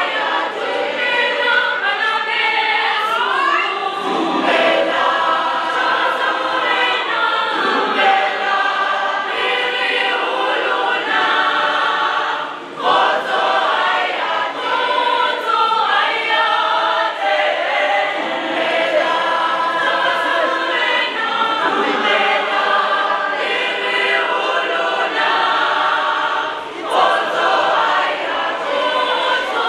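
A large choir of mostly female voices singing together in harmony, unaccompanied. The singing pauses briefly between phrases about 13 and 27 seconds in.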